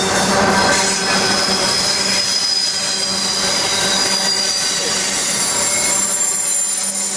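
Norfolk Southern double-stack intermodal train rolling past: a steady, loud rumble and clatter of well-car wheels on the rails, with thin, high, steady squeal tones from the wheels.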